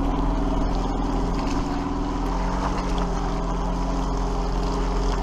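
An engine running steadily at an even speed while under way, with a constant low hum and no clear change in pitch.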